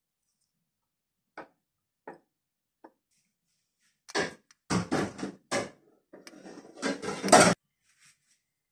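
Kitchenware being handled: a few faint taps, then from about four seconds in a run of louder knocks and scrapes of utensils against dishes.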